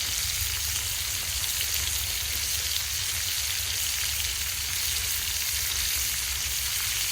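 Burger patties topped with cheese sizzling steadily as they cook over a campfire, with a steady low rumble underneath.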